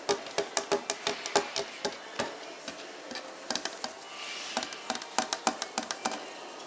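Norwich terrier puppies' claws clicking and pattering on a ceramic tile floor as they scamper about. Two runs of quick, sharp taps with a short lull between them.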